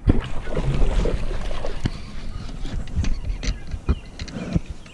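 Clothing rustling and rubbing against a chest-worn camera's microphone, with scattered knocks and clatters in an aluminum jon boat.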